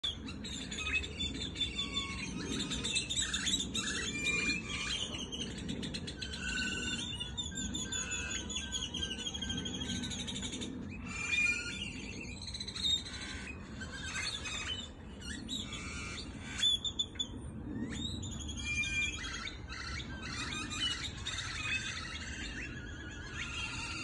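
Lots of birds chirping at once: a dense chorus of overlapping high chirps and rapid repeated notes, with a steady low background rumble underneath.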